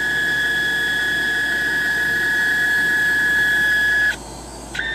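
Lumenlab micRo CNC's stepper motors driving the marker across the glass along the lead screws at a 45 inches-per-minute feed, a steady high whine with a higher overtone over mechanical noise. The whine cuts off suddenly about four seconds in and starts again just before the end in short stepped bursts.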